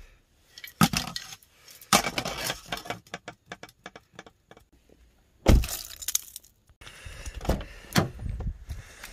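Plastic gold pan, scoop and snuffer bottle being handled and set down on a car seat: a run of light clicks, knocks and clatters, with one heavy thump about five and a half seconds in, then rustling.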